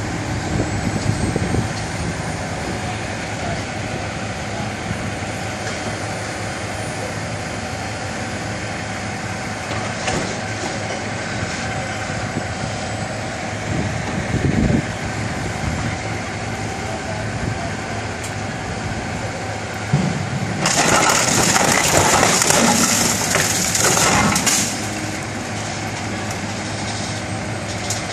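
Steady hum of heavy machinery, broken for about four seconds near the end by loud crunching and grinding of sheet metal as an orange peel grapple closes on a junk pickup truck's body.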